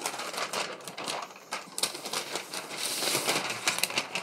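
Protective paper wrap being pulled off a laptop: a dense rustling and crinkling, full of quick sharp crackles, that rises and falls as the wrap is handled.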